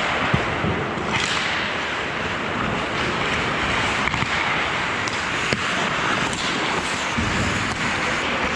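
Ice hockey play: a steady scraping hiss of skate blades on the ice, with a few sharp clicks and cracks of sticks striking the puck or each other.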